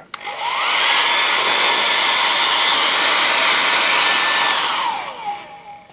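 Handheld hair dryer switched on: its motor whine rises quickly to a steady pitch over the rush of blown air, runs for about four seconds, then is switched off and winds down, the whine falling as the air noise fades. It is drying art masking fluid on watercolour paper.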